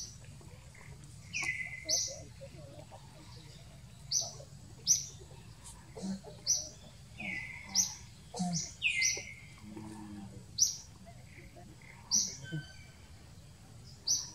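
A bird calling over and over: short, sharp high chirps about once a second, some followed by a lower falling note.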